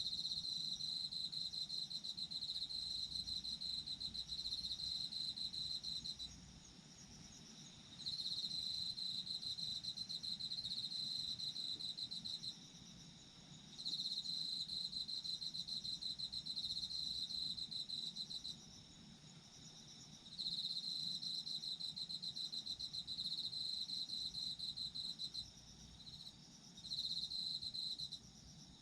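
Autumn crickets chirping: a close insect trills in long, fast-pulsed bouts of about five to six seconds with short pauses between them, breaking into two brief bursts near the end. A fainter, higher chorus of other insects runs on steadily underneath.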